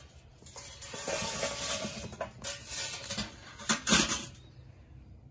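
Charcoal briquettes poured into a cast iron hibachi grill's firebox, rattling and tumbling for about two seconds. Then come a few sharp metal knocks, the loudest about four seconds in.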